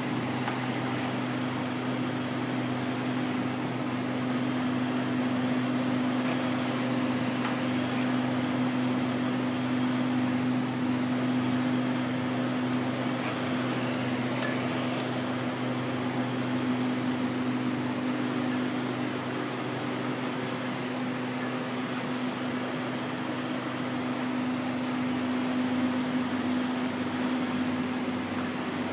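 Large-format flatbed inkjet printer running as it prints onto fabric, a steady machine hum with a constant low drone.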